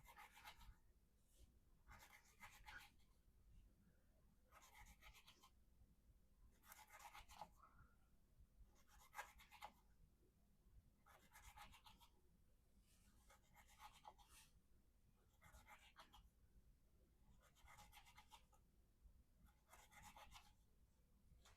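Faint slicing cuts through rope by a mirror-polished VG-10 steel knife blade (Spyderco Endura 4), about ten separate cuts spaced roughly two seconds apart.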